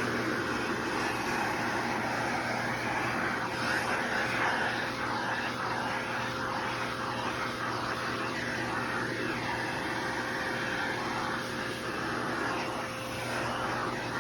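Oneisall pet grooming vacuum running steadily, a constant motor hum and suction whoosh with a shifting airy hiss as it draws in fur.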